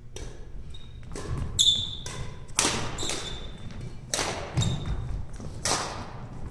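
Badminton racket strings striking a shuttlecock in a rally, about one sharp hit a second, several with a short ringing ping. Low thuds of players' feet on the wooden court floor in between.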